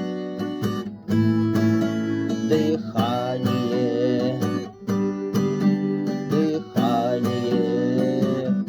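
Acoustic guitar strumming chords in an instrumental passage of a song, with a wavering sustained melody line over it.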